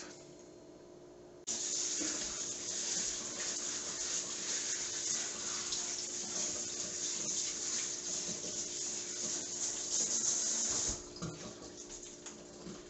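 Kitchen faucet running into a stainless steel sink as green vegetables are rinsed under the stream; the water starts abruptly about a second and a half in and eases off near the end. Before it, only a faint steady hum.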